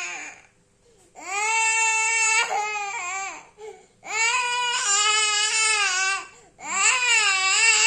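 Young boy crying hard in three long, high-pitched wails, with short breaths between them.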